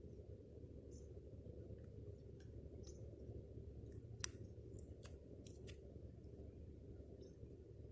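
Faint sharp clicks and light scrapes of a small plastic tool worked over a plastic cure strip on windshield glass, the loudest click about four seconds in and a quick cluster about a second later, over a low steady hum.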